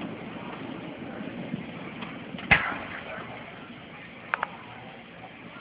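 Fireworks in a lull between volleys: one sharp bang about halfway through and two quick pops in close succession near the end, over a steady background hiss.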